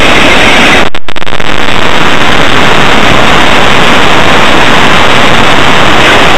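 Loud, steady, distorted static-like noise with no clear tone or rhythm, briefly dropping out about a second in.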